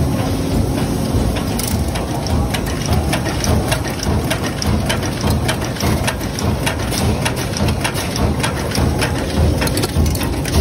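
Cold forging screw and bolt making machine running, a dense rattle of rapid, irregular metallic clicks over a steady low rumble.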